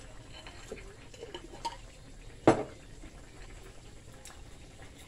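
Stewing fish simmering quietly in a stainless steel pan on the stove. A single sharp clink of a utensil against the cookware comes about halfway through, with a few fainter clinks before it.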